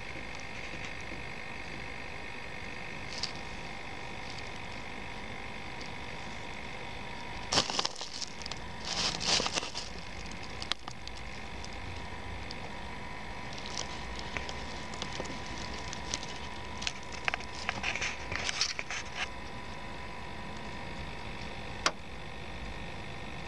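Irregular crackling rustles and scrapes of handling noise close to the microphone, in two clusters about a third and three quarters of the way in, over a steady background hiss with a faint hum. One sharp click comes near the end.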